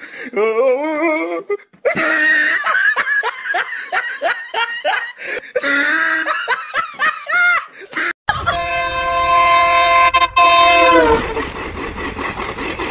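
A person laughing in quick, high-pitched peals. About eight seconds in, a loud, steady horn sounds several notes at once for about three seconds, then stops, leaving a rushing noise.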